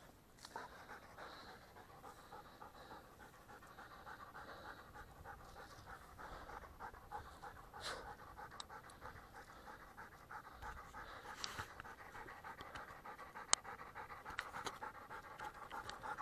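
Hunting dog panting steadily and quickly, with a few sharp clicks in the second half.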